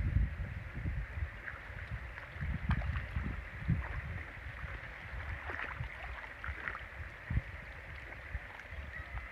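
Water sloshing and low, irregular thumps as a square lift net on a bamboo frame is lowered into a pond. The thumps come mostly in the first few seconds and then thin out, over a steady high hiss.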